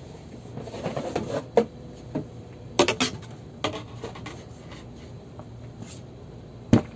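Plastic humidifier being handled: a series of irregular clicks, knocks and light rustling as its parts are turned over and set down, the loudest knocks about three seconds in and near the end.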